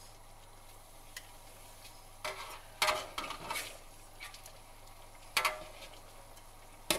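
Spatula stirring thick chicken masala in a steel pot: a handful of separate scrapes and knocks against the pot over a faint steady sizzle.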